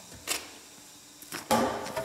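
A long rough-sawn tulipwood board being picked up and handled: a few light knocks, then a louder wooden clatter about one and a half seconds in as the board is lifted upright.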